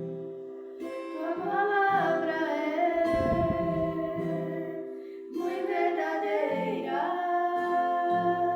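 Women singing a hymn with acoustic guitar accompaniment, in long held, gliding phrases.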